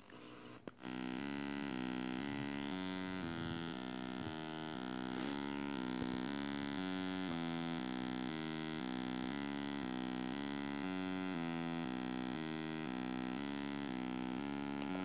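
Homemade Arduino 8-bit wavetable synth, set to a sine wave, playing its 8-step sequencer at a fast rate through a small portable speaker: a plain buzzy tone stepping from note to note about three times a second. It starts about a second in.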